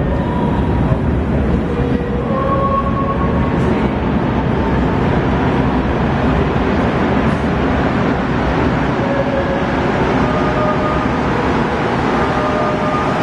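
Montreal Metro MR-73 train approaching through the tunnel: a steady, loud rumble that fills the station without letting up.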